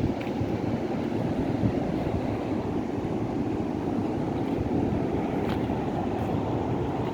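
Steady rumbling wind noise on the microphone over the sound of ocean surf.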